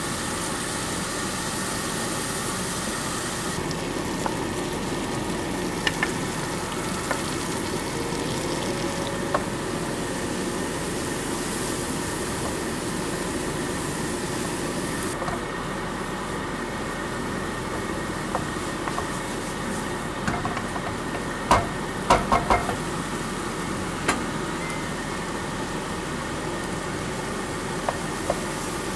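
Bacon, then diced vegetables and rice, sizzling steadily as they are stir-fried in a frying pan, with a wooden spatula knocking against the pan now and then and a quick run of knocks about two-thirds of the way through.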